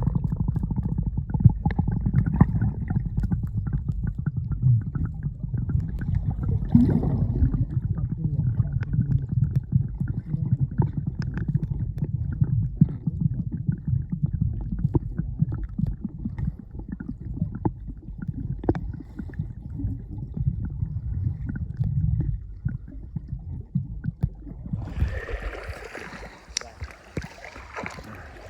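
Muffled underwater sound from a phone held below the surface of the water: a steady low rumble with scattered clicks and knocks. Near the end it gives way to a brighter hiss of moving water.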